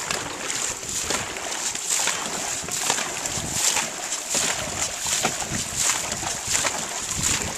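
Dragon boat crew paddling in unison: paddles dig into the water in a steady stroke rhythm, about one splash every three-quarters of a second, over a constant high hiss.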